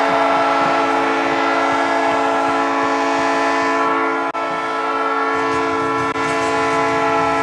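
Hockey arena goal horn, a chord air horn sounding one long, loud, steady chord that signals a goal. It has a brief dropout about four seconds in.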